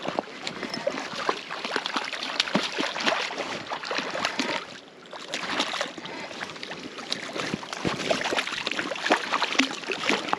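A hooked trout splashing and thrashing at the water's surface while being played in on a spinning rod, a dense run of irregular splashes with a brief lull about five seconds in.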